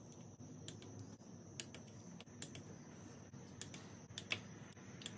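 Click-type torque wrench clicking on clutch cover bolts during the final tightening pass at 89 inch-pounds: a scatter of faint, sharp clicks at uneven spacing, some in quick pairs.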